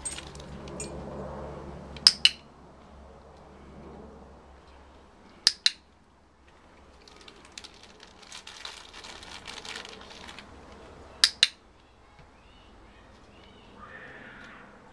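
Dog-training clicker clicked three times, a few seconds apart, each a sharp double click. It marks the moments the border collie gets its front paws up on an upturned plastic bowl.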